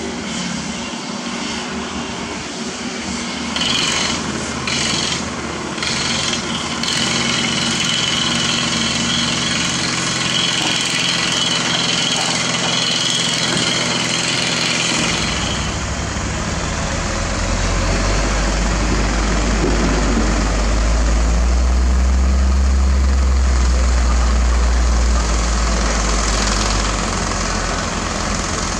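Hyundai Robex 210LC excavator's diesel engine running under hydraulic load as it digs and loads rock, with several sharp knocks of rock around 4 to 7 seconds in. About halfway through, a deep, loud rumble of a dump truck's diesel engine close by takes over, growing louder for a few seconds before easing.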